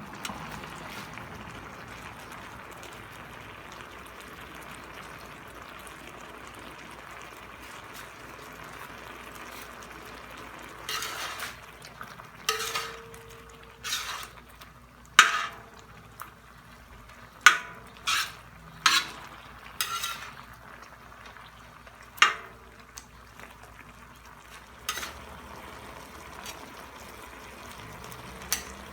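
Chicken and spices sizzling in a tawa pan with a steady hiss. From about eleven seconds in, a utensil scrapes and knocks against the pan as the chicken is stirred, every second or two, about ten strokes in all.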